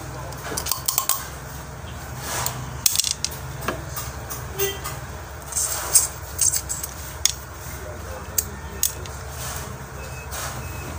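Eating crab and shrimp by hand: crab and shrimp shells cracking and snapping, with chewing and sucking of the meat from the shells, heard as scattered sharp clicks. A steady low hum runs underneath.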